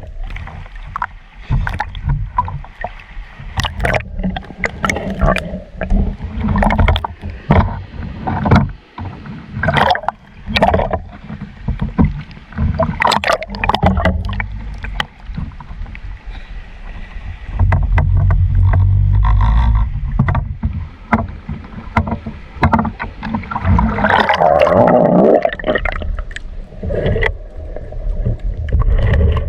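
Sea water splashing and sloshing at the surface, with irregular knocks and a low rumble that grows stronger for a few seconds past the middle.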